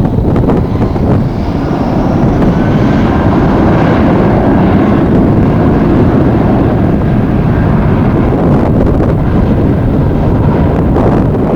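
Strong wind buffeting the microphone, loud and unbroken, over the engines of a passing jet airliner; a faint turbine whine climbs in pitch in the first few seconds.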